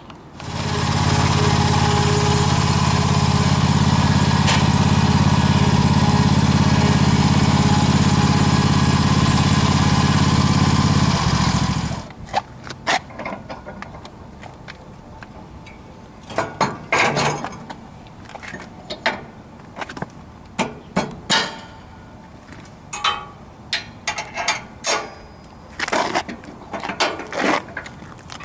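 Small gasoline engine of a Z-Plug aerator starting and running steadily for about eleven seconds, then shut off. After it stops, scattered sharp metal clicks and clanks as the slice seeder head is pinned onto the machine.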